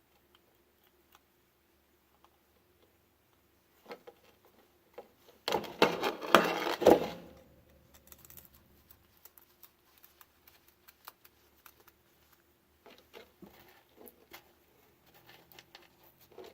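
Small clicks of hands and tools working on an electrical plug being fitted to a power cord, with a loud burst of handling noise lasting about a second and a half, about five and a half seconds in.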